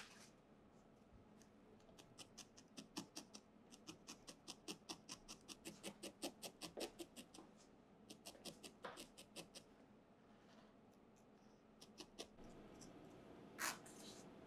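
Felting needle stabbing rapidly into a small piece of wool held over a foam felting pad: soft, scratchy pokes about five a second, in two quick runs. Near the end there is one louder brushing sound.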